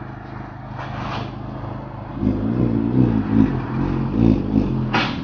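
Honda Civic Type R's turbocharged four-cylinder through an aftermarket cat-back exhaust, idling steadily, then revved in a few quick blips from about two seconds in, the note rising and falling.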